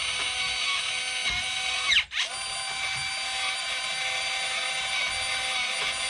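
Nuki Smart Lock 3.0 Pro's electric motor whining steadily as it turns the door cylinder through its calibration run. About two seconds in, the pitch falls, the motor stops for a moment and then runs up again as it reverses between locking and opening.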